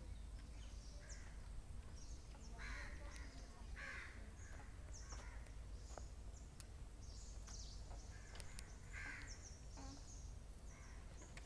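Crows cawing now and then, about six calls spread out, the loudest near the end, with small birds chirping high over a steady low rumble.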